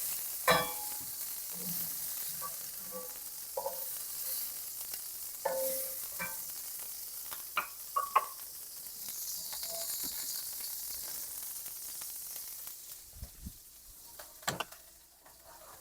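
Shrimp sizzling in hot oil in a wok, with a cooking utensil clinking and scraping against the pan several times as the half-cooked shrimp are lifted out. The sizzle dies down near the end.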